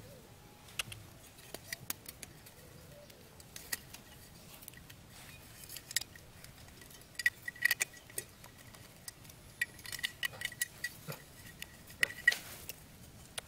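Scattered light clicks and taps of a metal hand saw being handled and fitted against bamboo stakes, with the loudest clicks clustered in the second half. A faint thin high tone comes and goes under the later clicks.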